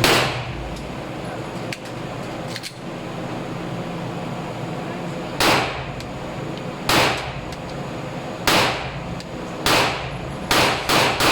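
Pistol shots at a firing range: one shot, then after a pause of about five seconds six more shots a second or so apart, each a sharp crack with a short echoing tail.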